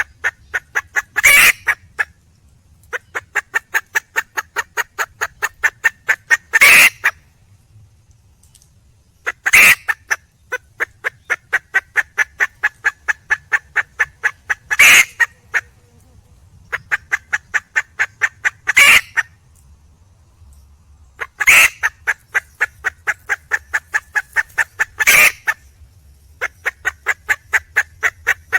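Red junglefowl hen calling for a mate: long runs of rapid clucks, about eight a second, broken every few seconds by a single loud, harsh call, seven times in all.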